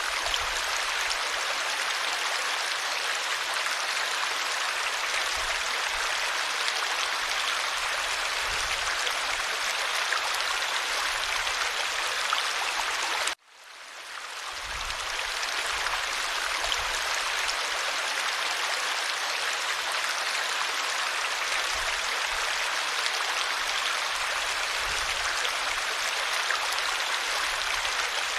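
Shallow stream running over stones, a steady rushing babble of water. About halfway through it cuts out for a moment and fades back in.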